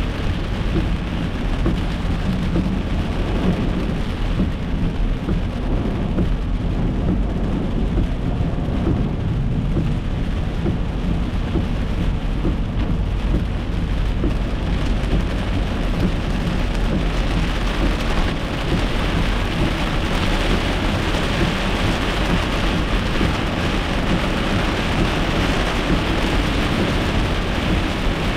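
Heavy thunderstorm rain pelting the car's windshield and roof, heard from inside the moving car, over a steady low rumble. The hiss of the rain grows stronger about halfway through.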